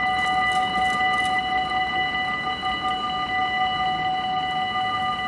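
Railway level crossing warning bell ringing steadily, an electronic ringing in several pitches held without change, sounding as the barriers come down to warn of an approaching train.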